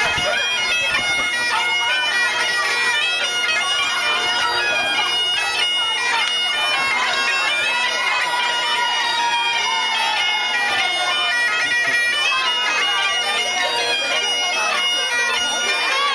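Bagpipes playing a lively dance tune over their steady drones.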